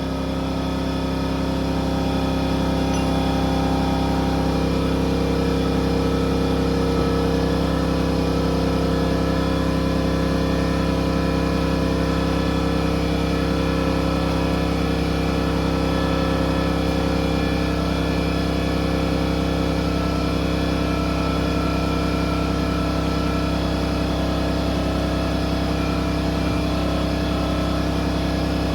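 A motor-driven machine running steadily, with a constant, even hum.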